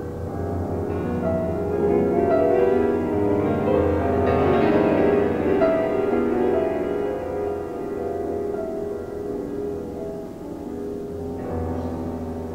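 Solo grand piano playing dense, sustained clusters of chords with a heavy low register. The sound swells to its loudest a few seconds in, eases off, and a fresh chord is struck near the end.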